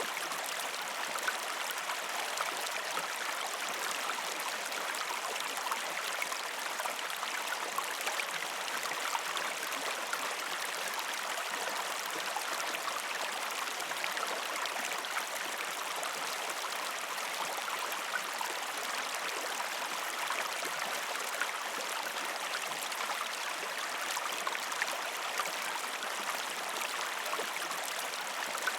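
A gentle river stream flowing steadily over rocks, a constant rushing with small scattered splashes and gurgles.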